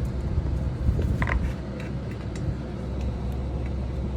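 Threaded cap being worked off a gas-line fitting by hand, with a short creak about a second in and a few small clicks, over a steady low rumble.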